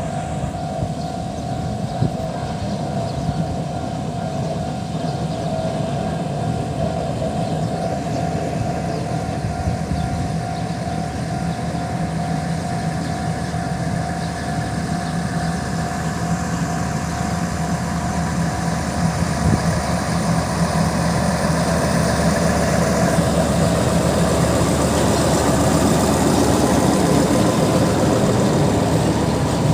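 Narrow-gauge sugar-railway train's engine running steadily, with a steady whine, growing louder through the second half as the train draws near.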